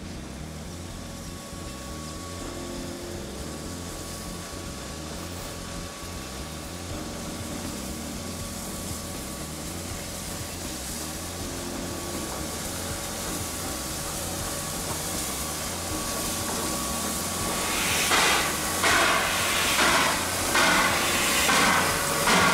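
Steam locomotive hauling a train at walking pace, its rumble slowly growing as it approaches. From about eighteen seconds in come loud, slow exhaust chuffs, a little under one a second, with steam hissing as it passes close.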